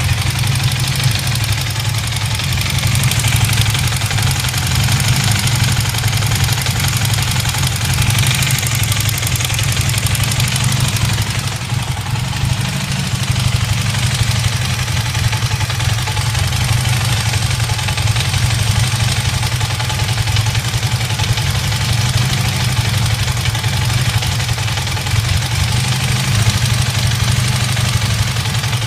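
Honda CB400N's air-cooled parallel-twin engine running steadily at idle with a rattling clatter from the engine, the sign of a fault whose cause the owner has not yet found.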